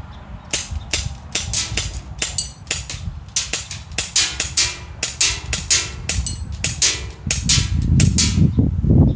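Airsoft gun firing a long string of sharp shots, about three a second, over a steady low rumble that swells near the end.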